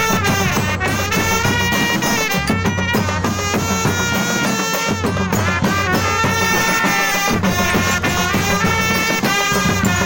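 Loud music: a melody with sliding, ornamented notes over a steady drum beat, in a folk style.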